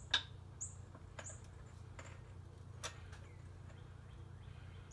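A few sharp metal clicks and short high squeaks, irregularly spaced and mostly in the first three seconds, as a front coil spring and lower control arm are worked under load.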